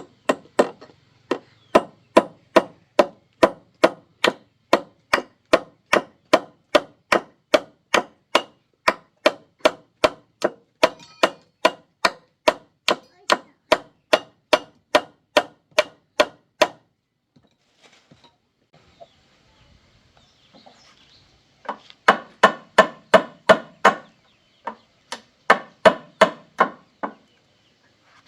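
A hand tool striking wood in a steady rhythm, about three blows a second, in one long run. After a pause come two shorter runs of blows.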